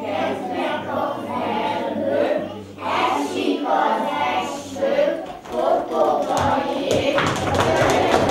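A group of young children singing a song together in unison, as an action song, with sharp claps or taps joining in near the end.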